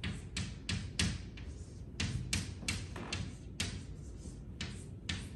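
Chalk writing on a blackboard: a quick run of short taps and scrapes, about three a second, one for each stroke of the letters.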